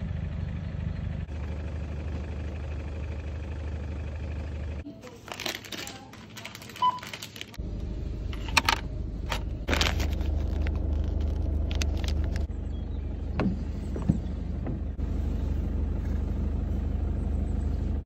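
Steady low rumble inside a parked van, dropping away for a few seconds about five seconds in. Through the middle part a plastic dog-treat bag crinkles and rustles with sharp clicks.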